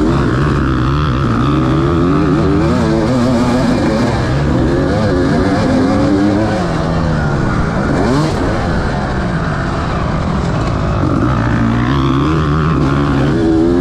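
Motocross bike engine being ridden hard, its pitch rising and falling again and again with throttle and gear changes. A second engine's note briefly crosses it about halfway through.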